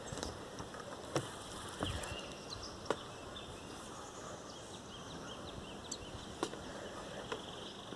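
Quiet outdoor background ambience: a steady low hiss with a few faint clicks and faint high chirps scattered through it.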